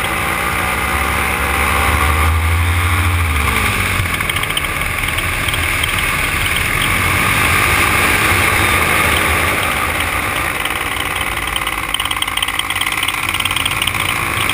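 Paramotor engine and propeller running steadily in flight, with wind rushing over the microphone; the engine's pitch briefly rises and falls about two to three seconds in.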